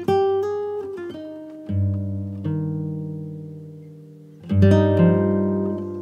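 Background music on acoustic guitar: plucked notes and chords, a new chord struck every second or two and left to ring and fade.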